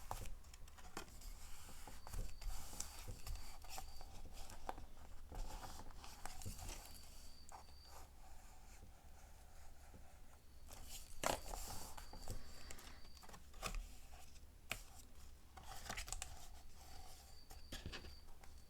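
Freshly glued paper and card being pressed down and rubbed by hand: soft rustling, scraping and occasional light taps, one slightly louder about eleven seconds in.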